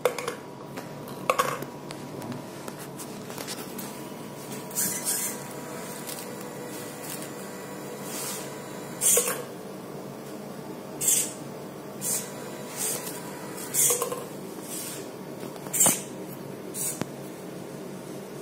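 Hobby servo motors of an Arduino-controlled ball-sorting machine moving in a series of short whirring bursts, one every second or so, with light clattering of plastic balls and mechanism parts, over a steady faint hum.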